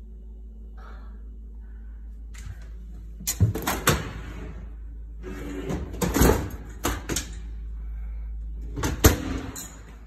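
Closet and cabinet doors being opened and shut: several groups of sharp clacks and knocks, the loudest about nine seconds in.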